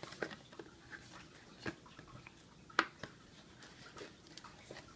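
Fingers picking and prying at a stubborn sealed trading-card box: faint, scattered clicks and scrapes of cardboard and plastic wrap, with one sharper click about three seconds in.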